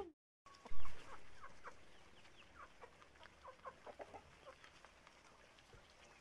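Chickens clucking in many short, quick notes while pecking at feed, after a single loud thump about a second in.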